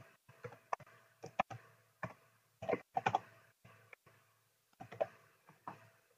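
Faint, irregular keystrokes on a computer keyboard, typing a short line of text in uneven bursts with pauses between them.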